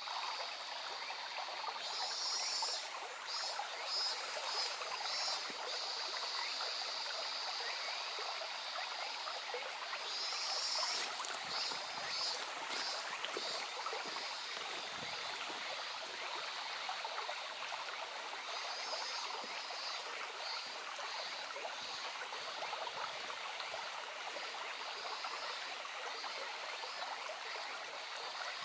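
A small stream babbling steadily over stones. Over it come three spells of short, high, pulsed animal calls, about two a second, from frogs or insects at the water.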